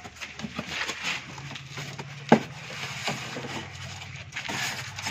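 Cardboard box flaps and polystyrene foam packing being handled and pulled open, with a sharp knock about two seconds in and a low steady hum underneath from then on.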